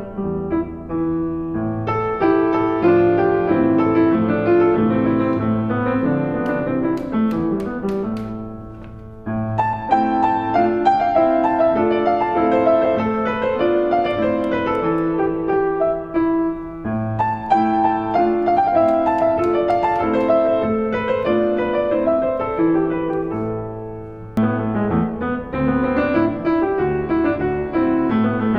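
Background music: piano playing melodic phrases, easing off briefly twice before new phrases begin.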